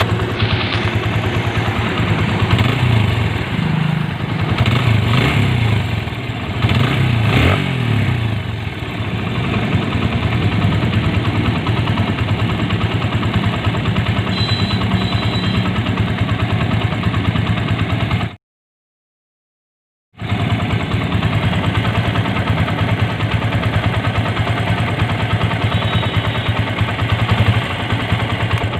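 TVS Apache motorcycle engine running with a rough 'badbad badbad' noise, bad enough that the engine had to be rebuilt to cure it, and revved a few times in the first seconds. After a short silent cut, the rebuilt engine idles steadily with that noise gone.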